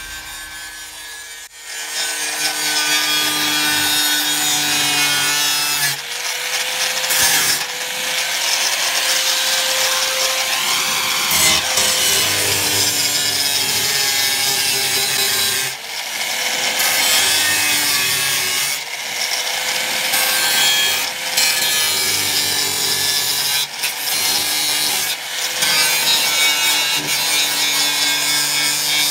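Angle grinder running with its disc pressed against a rusted steel car fender, grinding rust and paint down to bare metal. It starts about a second and a half in, with a steady motor whine under the grinding, and briefly eases off now and then as the disc is lifted and set back on.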